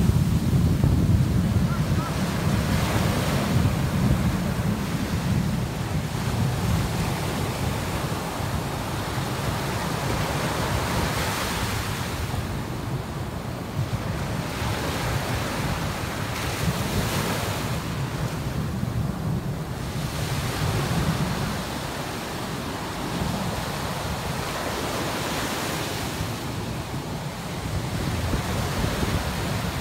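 Ocean surf breaking and washing toward shore, a steady rushing that swells and eases, loudest in the first few seconds, with wind buffeting the microphone.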